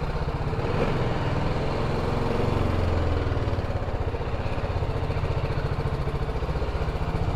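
BMW G310GS motorcycle's single-cylinder engine running steadily while being ridden, with a fast, even pulse.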